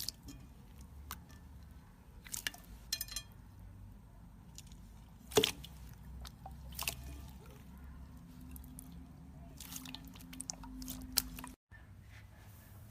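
Slime being squished and pressed by hand: scattered wet clicks and pops, the loudest about five seconds in and a quick run of them near the end.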